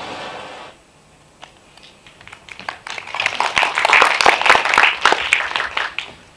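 Audience clapping, starting scattered about a second and a half in, swelling to full applause, and dying away near the end. The tail of the film teaser's soundtrack fades out in the first second.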